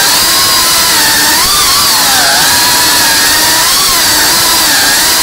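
FPV quadcopter's brushless motors and propellers whining loudly over a steady hiss, the pitch sliding up and down together as the throttle changes.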